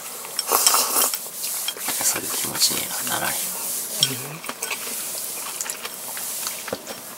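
Eating from a ceramic bowl with wooden chopsticks: the chopsticks click and scrape against the bowl again and again, along with close-up chewing and mouth sounds.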